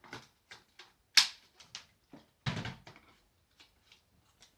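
Plastic parts of a Hoover H-Free 700 cordless stick vacuum being handled and clicked together during assembly. A loud sharp click about a second in and a heavier clunk about halfway, with lighter taps and knocks around them.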